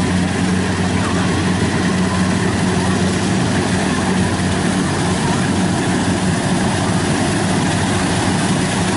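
Kubota DC-93 rice combine harvester running steadily under load as it cuts rice in soft, muddy ground, its engine an even low drone.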